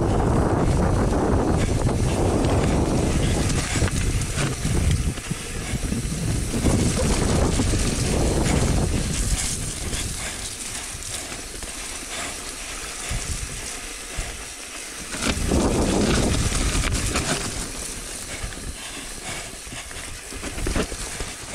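Mountain bike riding down a wet, leaf-covered dirt trail: tyres rolling over leaves and ground, the bike rattling and clicking over bumps, and wind rumbling on the microphone. It comes in louder and quieter stretches as the speed changes.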